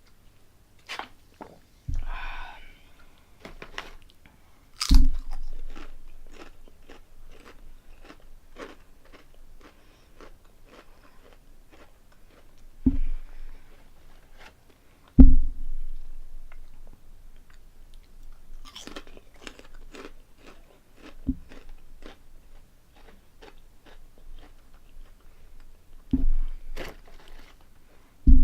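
Close-miked chewing of crunchy honey-flavoured potato chips: a steady run of crisp crunches, broken by several much louder low thumps.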